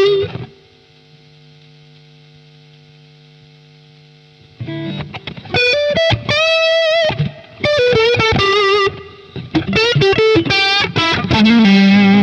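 Electric guitar played through a Boss Katana 100 amplifier with plate reverb on. A quiet held note rings steadily for about four seconds, then lead phrases of single notes with bends and vibrato come in loudly.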